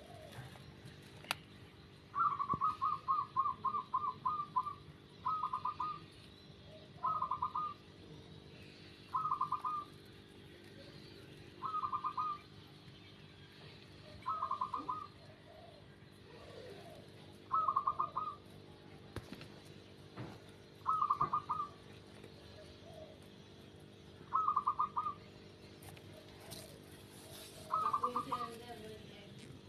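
A bird calling in short, fast trilled bursts repeated every few seconds, with a longer run of trills near the start.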